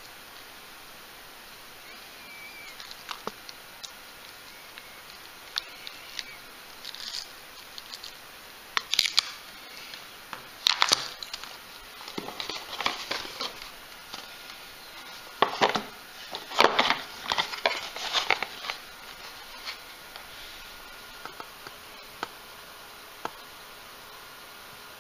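Intermittent crinkling rustles and light clicks of plastic food packaging being handled, busiest in the middle stretch.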